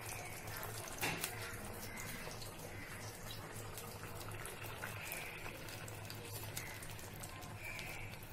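Fresh aloe vera gel simmering in ghee in a pan, bubbling with a steady run of small pops and crackles, with one light knock about a second in. The gel is melting down into a watery liquid as it cooks.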